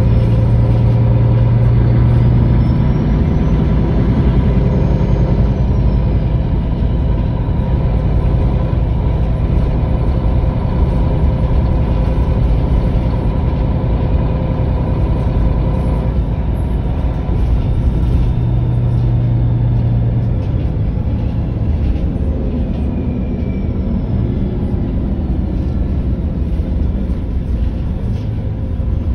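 Diesel engine of a MAN NG323 Lion's City GL articulated bus running steadily. A low hum swells near the start and again about two-thirds of the way through, and a faint high whine rises and falls twice.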